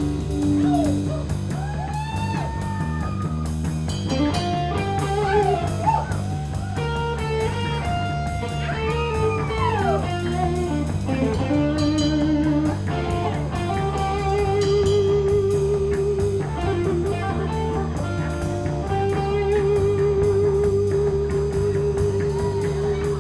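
Live rock band in an instrumental break: an electric guitar plays a lead solo with bent notes, and some long notes held with vibrato in the second half, over bass guitar and drums.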